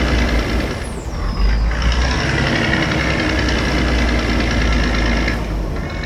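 Heavy vehicle engine sound effect running steadily with a deep low rumble, with a short falling whistle about a second in.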